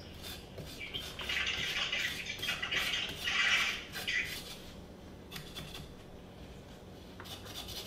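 Knife scraping the skin off a ginger root on a wooden cutting board: several scraping strokes over about three seconds, then quieter with a few faint clicks near the end.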